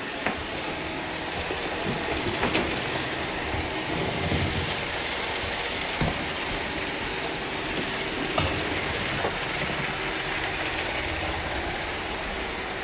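Robot vacuum cleaners running, with a steady whir of motors and brushes as they work through piles of confetti. A few short clicks and knocks are scattered through it.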